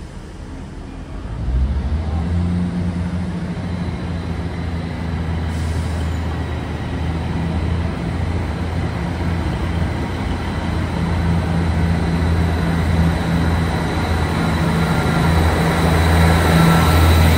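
A pair of Class 150 diesel multiple units arriving at the platform. The diesel engines give a steady low drone with a faint high whine; it comes in about a second and a half in and grows louder as the train draws alongside.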